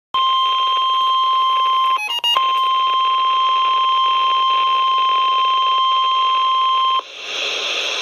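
NOAA Weather Radio warning alarm tone, the steady 1050 Hz alert for a warning-level message, sounding loudly from a weather radio receiver's speaker. It is broken about two seconds in by a few quick beeps of different pitches, then runs on until it cuts off near the end and gives way to a steady radio hiss.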